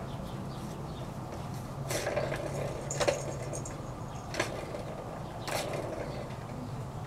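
Plastic track-ball cat toy clacking as a kitten paws at it: four sharp clacks, about a second apart, over a steady low hum.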